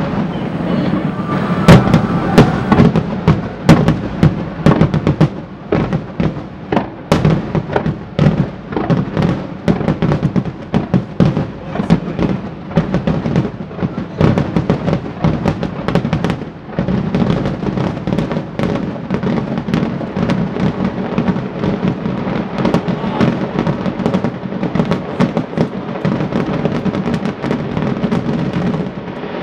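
Fireworks display: a rapid barrage of aerial shells bursting one after another, many sharp booms in quick succession over a constant rumble, the loudest about two seconds in.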